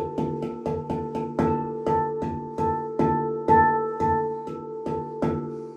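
GLADFRESIT handpan in D Kurd minor played by hand: a steady run of struck notes, about three a second, each one ringing on under the next.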